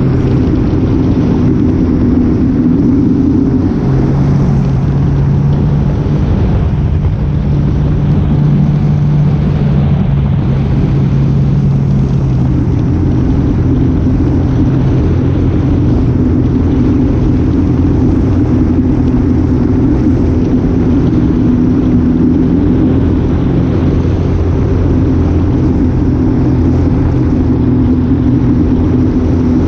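An engine running steadily with a low drone, its pitch shifting slightly between about 4 and 12 seconds in.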